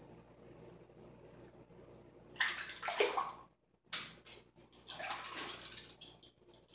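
Water running into a bathroom sink in two spells. The first starts about two and a half seconds in, stops briefly, and the second runs again for about two seconds.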